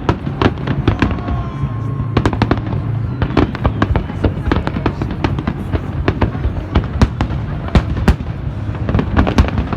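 Fireworks salute going off in a rapid, continuous barrage of bangs and crackles, many each second, over a steady low hum. A brief whistling tone rises about a second in.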